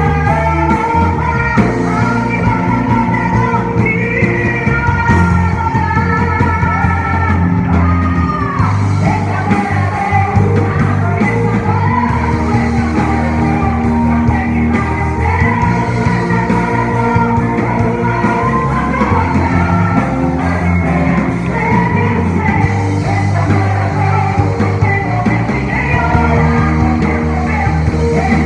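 Christian worship song with singing over a full band, the bass holding long notes beneath the voices.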